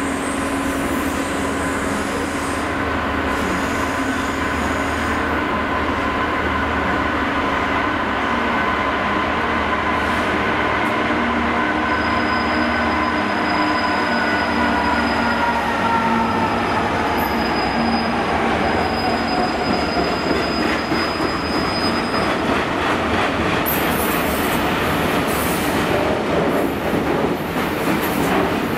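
Class 66 diesel locomotive, with its EMD two-stroke V12 engine, running past hauling a freight train of steel-coil wagons: a steady engine note under a high whine that slides down in pitch as the locomotive goes by about two-thirds through. Near the end the wagon wheels click over the rail joints.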